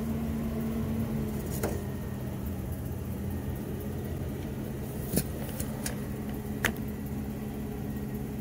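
A car engine idling in the background: a steady hum whose pitch steps down slightly about a second and a half in. A few short, sharp clicks sound over it.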